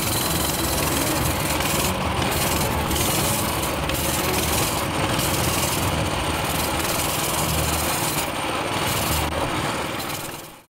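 Small motorbike engine running with a steady rough buzz, fading out near the end.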